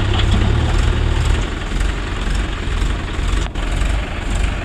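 Mahindra 575 DI tractor's four-cylinder 2730 cc diesel engine running at low revs, a steady low drone, with a brief gap in the sound about three and a half seconds in.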